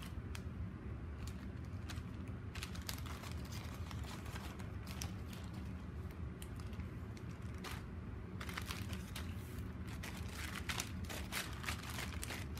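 Clear plastic zip-lock sample bags crinkling and rustling as filament samples are handled, with scattered small clicks that come thick and fast in the last few seconds, over a steady low hum.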